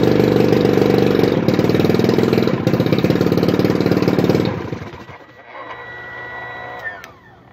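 1981 Evinrude 35 HP two-stroke outboard powerhead running with a rapid, even beat on one cylinder, its other spark plug pulled. About four and a half seconds in it is shut off and coasts to a stop. A faint high whine follows and falls in pitch near the end.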